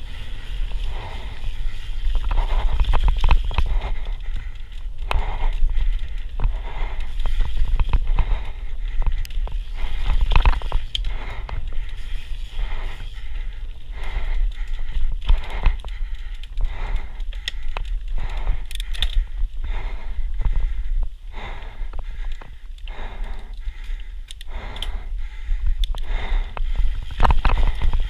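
Santa Cruz Megatower enduro mountain bike descending a dirt singletrack: tyres scraping over dirt and roots, with frequent short clatters and rattles from the chain and frame over bumps, under a heavy rumble of wind on the microphone.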